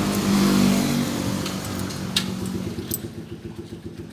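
Motorcycle engines at low speed: one runs louder over the first couple of seconds and eases off as it pulls in, then a small motorcycle engine idles with a steady, even pulse.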